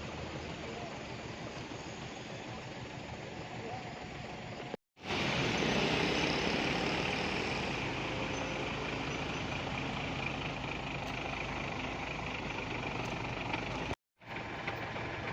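Truck engine running on the road, in three stretches joined by two abrupt cuts where the sound drops out briefly; the stretch after the first cut is louder.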